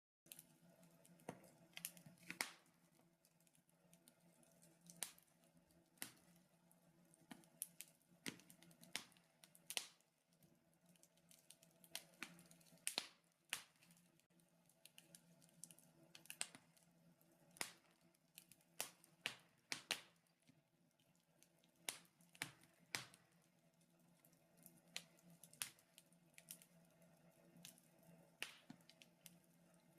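Wood fire burning in a fireplace, crackling with irregular sharp pops and snaps, over a faint steady hum.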